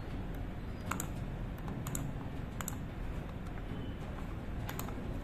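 A handful of separate computer keyboard clicks, most between one and three seconds in and a quick pair near the end, over a steady low background hum.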